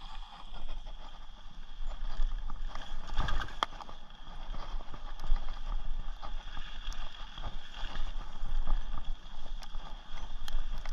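Rocky Mountain Thunderbolt mountain bike rolling fast over a dirt forest trail: steady tyre and riding noise with frequent small knocks and rattles as the bike goes over bumps.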